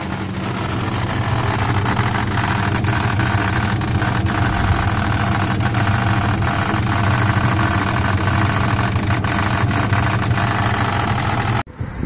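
Haier HWM72-1128NZP washing machine running, with a steady motor hum and irregular rattling clicks, building over the first two seconds and cutting off abruptly near the end. This is the spin noise the repairer traced to a 1-rupee coin caught in the machine.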